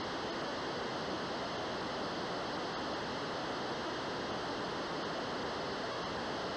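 Steady, even static hiss like white noise, starting abruptly out of dead silence, with no pitch or rhythm.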